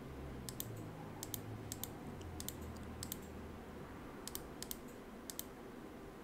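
Computer mouse clicking repeatedly, a string of sharp clicks, many in quick pairs, as frames of a weather-model loop are stepped through. A faint low hum sits under the clicks for the first half.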